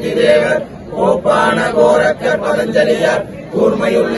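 A group of men chanting a devotional Shaiva prayer together in unison, in short phrases with brief breaks for breath.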